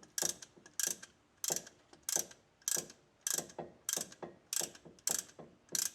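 A ratcheting brake caliper piston compressor being cranked: a steady series of ratchet clicks, about one and a half a second, as the tool pushes the caliper piston back into its bore to make room for thicker new brake pads.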